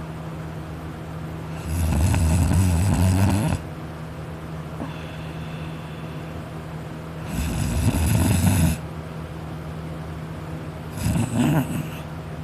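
A sleeping man snoring: three loud snores about five seconds apart, the last one shorter, over a steady low hum.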